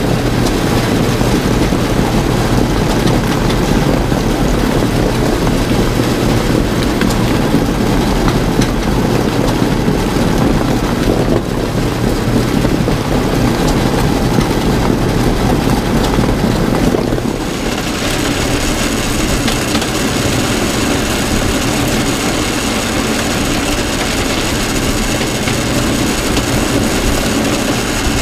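Small chain-and-paddle elevator running steadily, its chain and paddles dragging wet chicken manure up the steel trough. About 17 seconds in, the sound changes to a more even hiss.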